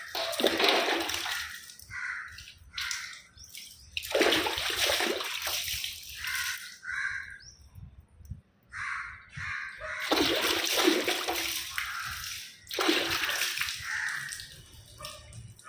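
Water splashing and sloshing in irregular bursts as goat intestines are rinsed and squeezed out by hand, with wet spattering onto the floor.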